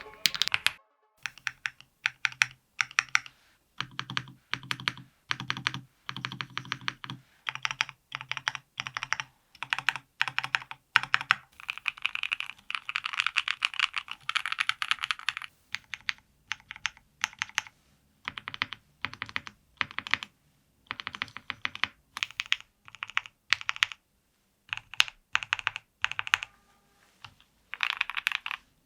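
Stabilized long keys of a Dry Studio Black Diamond75 custom mechanical keyboard (FR4 plate, full foam, DR Rapid ICE and Tecsee X SW Flow Black switches) pressed over and over in short runs: a stabilizer sound test. The presses come as quick clusters of clacks with brief pauses, many with a deeper thock underneath.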